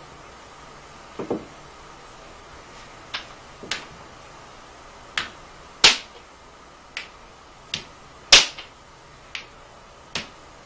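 A pointer tapping on a wall reading chart: about eleven sharp taps at uneven intervals, the loudest two about six and eight and a half seconds in.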